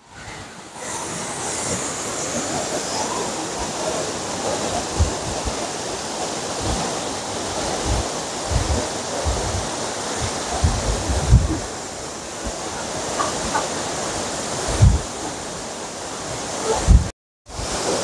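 Steady, loud rush of a monsoon-swollen waterfall crashing into its plunge pool, with scattered low thumps on the microphone. The sound cuts out briefly near the end.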